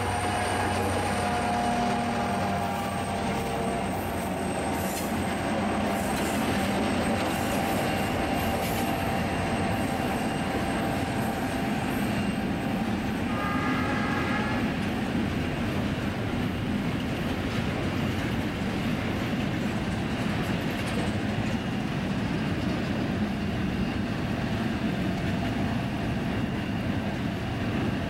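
Diesel-hauled freight train passing: the locomotives' engines running at first, then a steady rumble of container wagons rolling over the rails. About halfway through comes a brief high ringing tone from the train.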